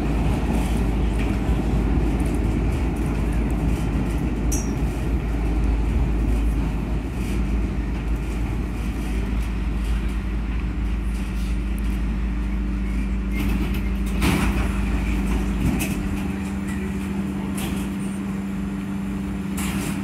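SEPTA Broad Street Line subway car heard from inside, running through the tunnel with a steady low rumble of wheels on rail. About a third of the way in a steady hum joins it, a couple of sharp clanks come near the end, and the deep rumble fades as the train slows into the station.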